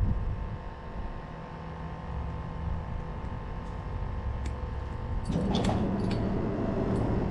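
Road traffic on the bridge overhead: a low, steady noise that grows louder about five seconds in, with a few sharp clicks near the end.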